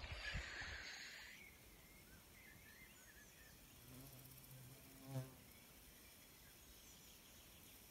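A flying insect buzzing close by: a low buzz that comes in about four seconds in and swells to a short peak just past five seconds before fading. Otherwise near silence, with the soft wash of water dying away in the first second or so.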